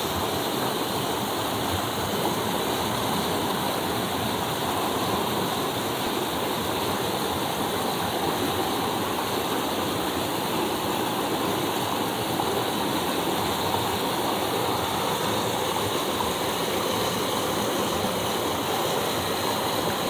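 Steady rush of river water cascading over boulders in small waterfalls, with no breaks.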